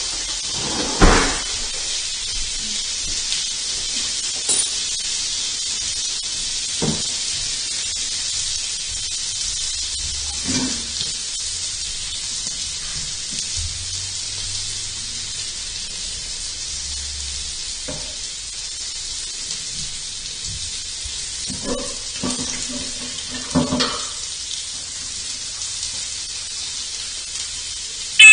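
Bacon frying in a pan, a steady sizzling hiss, with a few short knocks about one, seven, ten and a half, twenty-two and twenty-four seconds in.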